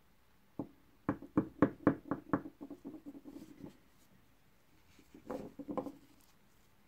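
Lumps of dry white edible clay knocking against each other and the hard tabletop as they are handled and set down. A single knock comes first, then a quick run of knocks that grows fainter and faster as a piece settles, and a second short clatter near the end.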